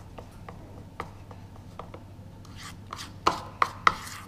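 Metal spoon stirring thick icing in a bowl, scraping and clinking irregularly against the bowl's sides, with three louder knocks in quick succession near the end.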